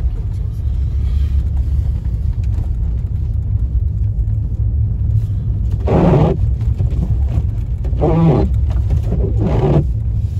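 Steady low rumble of a car driving over a snow-covered road, heard from inside the cabin. Three short pitched sounds come in the second half, about six, eight and nine and a half seconds in.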